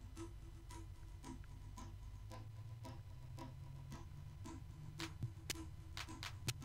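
Background music with a steady ticking beat, about two beats a second, over a low steady rumble.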